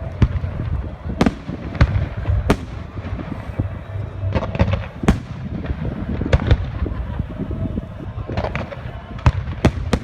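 Aerial fireworks bursting: a string of sharp bangs, several loud ones about a second apart, with quicker crackling clusters about four seconds in and again near the end, over a steady low rumble.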